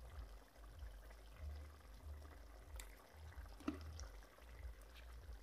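Faint bubbling and crackle of chicken curry simmering in a pot, over a low steady hum, with a couple of soft clicks around the middle.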